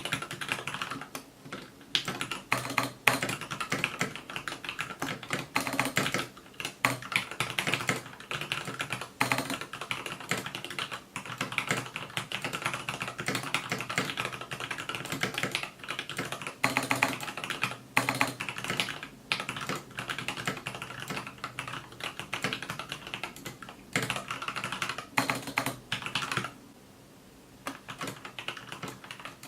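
Fast continuous typing on a TADA68 mechanical keyboard with lubed Gateron Yellow linear switches and Vortex PBT OEM-profile keycaps: a steady stream of keystrokes, with a pause of a second or two near the end.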